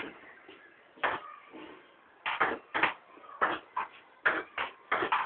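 Table tennis ball knocking against the paddles and the table during a rally: irregular sharp clicks, several in quick pairs as the ball bounces on the table and is struck back.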